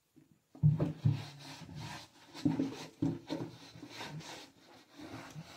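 A cloth rubbed back and forth over the painted slats of a louvred window shutter, in repeated wiping strokes that start about half a second in.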